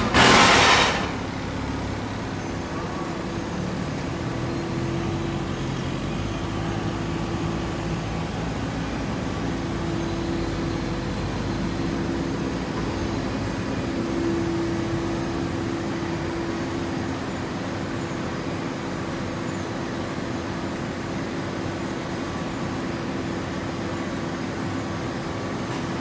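Fibre baling plant machinery running with a steady drone that carries a constant low hum. A loud hiss lasting about a second comes at the very start.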